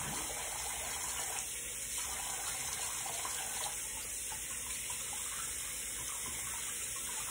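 Bathroom sink tap running steadily while a face is rinsed off under it.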